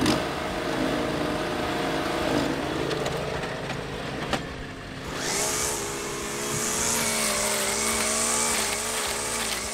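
Riding lawn mower engine running as the mower drives off over rough ground. About five seconds in, the sound changes to a gas string trimmer's engine running steadily at speed while cutting dry grass and weeds, with a hiss over the engine.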